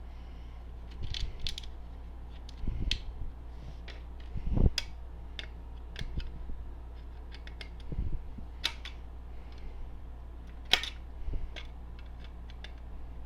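Irregular small clicks, taps and knocks of a screwdriver and metal parts being handled while the flat screws holding the handle of a Simplex 4251-20 fire alarm pull station are worked out. A duller knock about four and a half seconds in and a sharp click near eleven seconds are the loudest.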